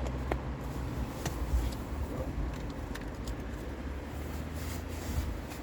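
A steady low rumble with a few faint ticks, about four of them in the first three seconds.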